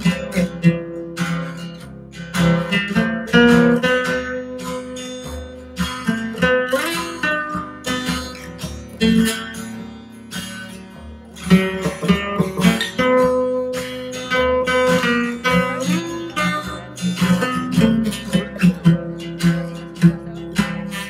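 Background music: acoustic guitar, picked and strummed, playing throughout.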